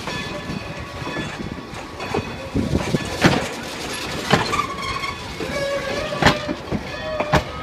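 Passenger train of the Strasburg Rail Road rolling slowly, with irregular clanks and knocks from its cars and running gear and a couple of short squeals.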